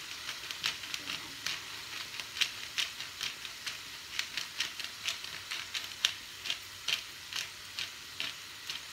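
A nearly empty pepper shaker shaken over a pan, clicking about two to three times a second, over the steady sizzle of green beans and shrimp frying in a stainless steel pan.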